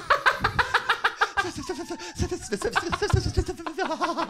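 A man's exaggerated, theatrical sobbing and wailing in rapid pulses of several a second, mixed with laughter.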